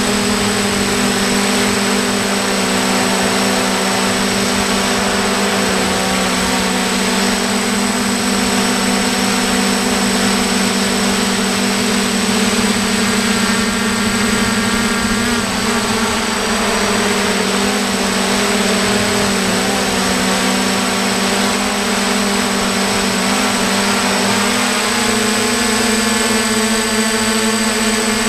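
Electric motors and propellers of a hexacopter drone, heard from the camera rig it carries, giving a steady, loud buzz. The pitch wavers a little around the middle and again near the end as the motor speeds change.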